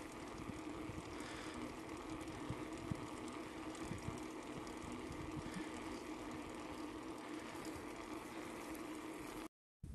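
Mountain bike rolling along asphalt: the steady hum of its tyres with road and wind noise and small low bumps.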